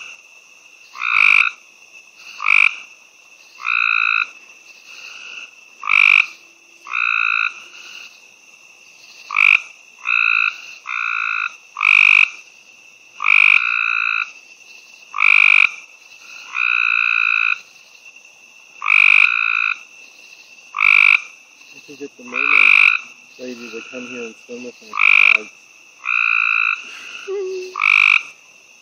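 Gray treefrogs calling at close range: loud, musical trills repeated about every one to two seconds, some short and some drawn out to about a second.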